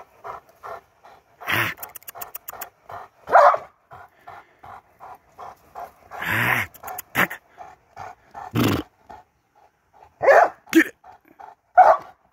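A 19-month-old Presa Canario panting hard, about three breaths a second, broken by several loud barks as it jumps at a lure.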